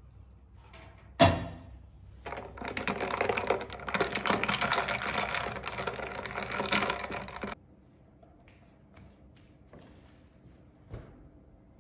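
A long metal spoon stirring ice cubes in a glass jar of iced latte: one sharp clink about a second in, then about five seconds of fast rattling as the ice and spoon knock against the glass, stopping suddenly.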